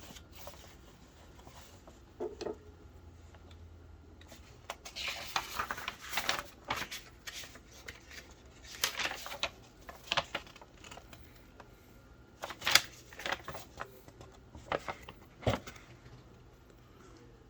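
Small objects handled on a tabletop: scattered sharp plastic clicks, taps and short rustles, coming in bursts with quiet gaps between.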